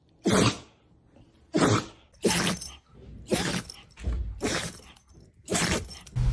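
A dog sneezing over and over, about six sharp sneezes roughly a second apart.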